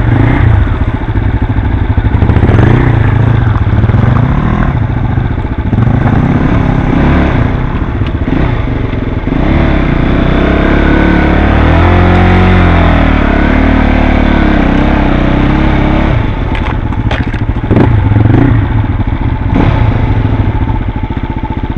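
Off-road trail motorcycle engine revving up and dropping back over and over as the bike is worked along a deep muddy rut, held high for a few seconds in the middle. Sharp knocks and clatter come near the end.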